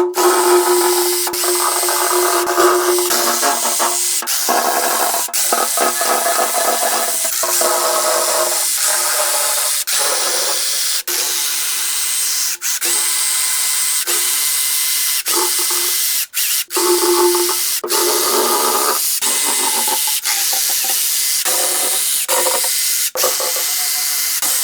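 Cordless power drill or driver running in a long series of runs, stopping and starting abruptly many times, as a row of 1/2-inch-headed bolts is backed out of an engine block.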